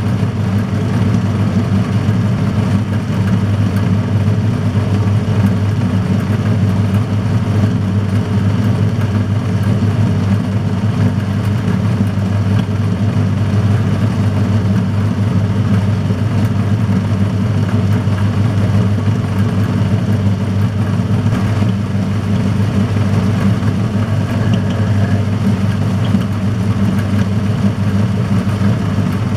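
Metal-turning lathe running steadily with an even, low motor-and-gear hum, switched on abruptly at the start, while a centre drill is fed from the tailstock into the end of the turning steel bar.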